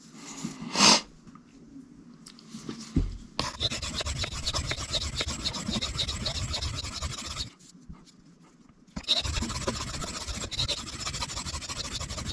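Steel knife edge scraped back and forth across a coarse 320-grit diamond sharpening plate: a gritty rasping in two long runs of quick, even strokes with a pause of about a second and a half between them.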